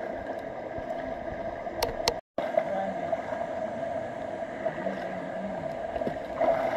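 Steady rush of a shallow stream running over rocks, broken by a short drop to silence a little over two seconds in.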